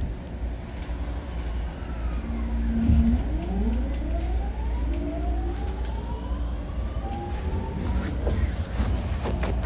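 JR East 209 series electric train heard from inside a motor car: a steady low rumble, then from about three seconds in several whining tones from the traction inverter and motors climb steadily in pitch as the train pulls away and gathers speed.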